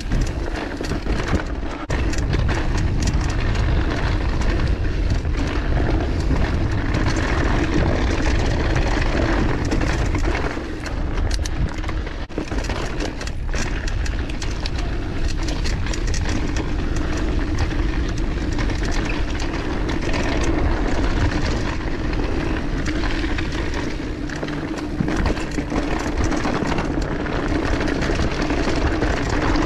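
Mountain bike rolling down a dirt singletrack: a steady rush of tyre noise and wind on the microphone, with frequent rattles and clicks from the bike over roots and rocks.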